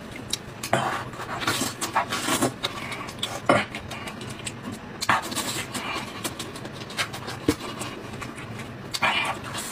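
Close-miked eating: wet chewing and lip-smacking on sheep-head meat, with irregular sharp smacks and the sticky tearing of meat pulled from the bone by gloved hands.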